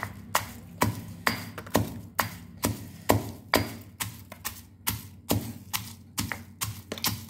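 Stone pestle pounding peeled garlic cloves in a stone mortar, steady knocks a little over two a second, crushing the cloves coarsely until they split.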